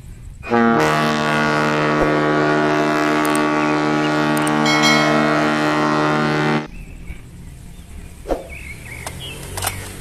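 A ship's horn gives one long, steady blast of about six seconds and cuts off suddenly. After it come a few light knocks.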